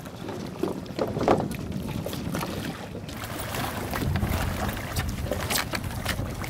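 Sea water lapping around a bamboo raft, with scattered knocks of the bamboo poles and wind rumbling on the microphone, which grows louder about four seconds in.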